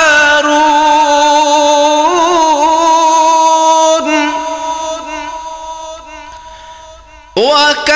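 A Quran reciter's voice holding the drawn-out last syllable of 'wa Musa' as one long, gently wavering melodic note. The note slowly fades away from about halfway, and the next sung phrase begins sharply just before the end.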